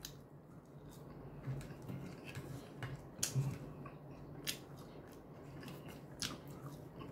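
A person chewing a mouthful of food with the mouth closed, faint, with a scatter of small wet clicks and smacks.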